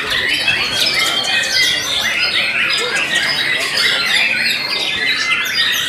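White-rumped shamas (murai batu) in contest cages singing and calling together, a dense mass of overlapping chirps and whistles with no pause.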